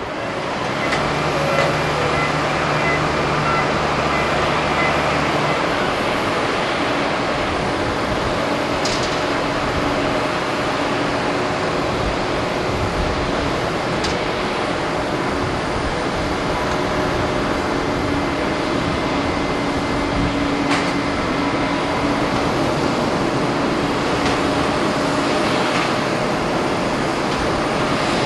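Steady jet-engine whine and rumble from a Boeing 787-10 taxiing onto the runway at low thrust. A low hum is heard in the first five seconds, and a few faint clicks are heard along the way.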